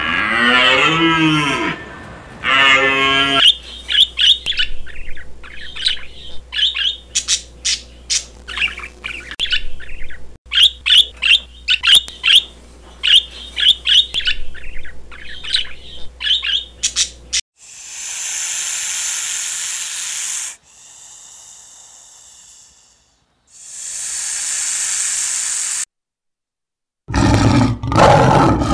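A bull elk calls with a gliding, wavering bugle that rises and falls, followed by a shorter second call. Then a pair of budgerigars keep up a rapid run of short chirps and warbles. After two long hiss-like rushing noises, a male lion begins to roar near the end.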